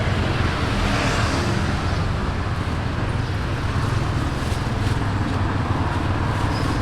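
Street traffic noise: a steady hum of vehicles passing on a road.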